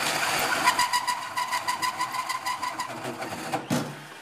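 Cordless drill driving a hole saw into a steel plate, the saw chattering in a rapid, even rhythm as it bounces in a groove cut too wide. It stops about three seconds in, and a sharp metallic clank follows near the end.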